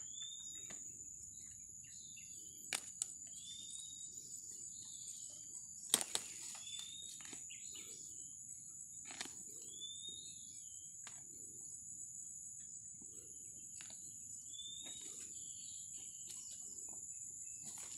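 Steady high-pitched drone of insects with a bird repeating a short whistled note every few seconds, and a few sharp clicks about 3 and 6 seconds in.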